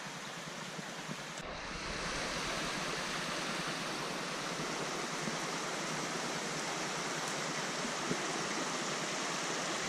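Steady rushing of a waterfall's falling water. About a second and a half in, a low rumble joins and the sound grows a little louder.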